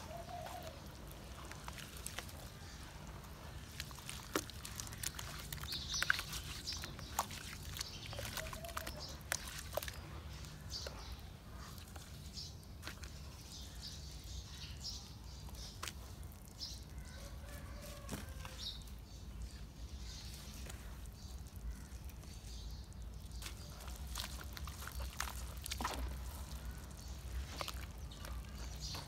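Hands squishing and sloshing through wet cement paste and dipping chalky cement slabs into it: soft wet squelches with frequent small sharp clicks and crackles.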